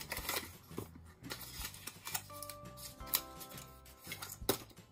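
Light, scattered clicks and taps of a small cardboard cosmetics box being opened and handled as a facial-oil bottle is taken out, with faint music behind.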